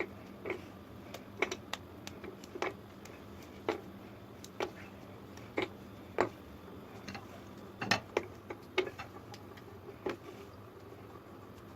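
Chocolate bars being broken into pieces by hand: a string of sharp, irregular snaps and clicks, some louder than others.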